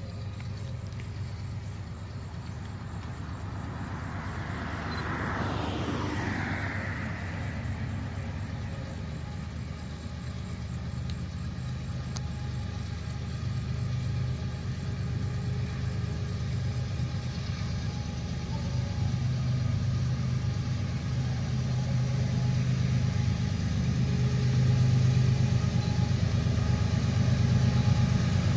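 Diesel freight locomotives approaching from a distance, their low engine drone growing steadily louder. A brief swell of passing-vehicle noise comes about five seconds in.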